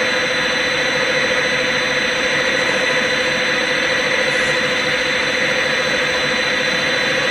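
CNC lathe spindle running with a steady whine and hiss while the turning tool takes a very light pass on the workpiece.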